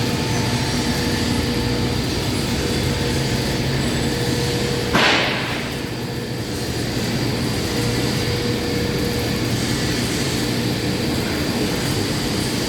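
Steady hum of fabrication-shop machinery, with a constant low drone and a faint high whine, broken about five seconds in by a short hiss lasting under a second.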